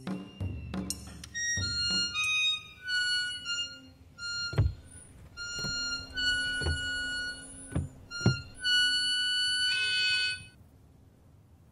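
Harmonica playing a slow run of held single notes, with a few low thumps between them; the playing stops abruptly near the end.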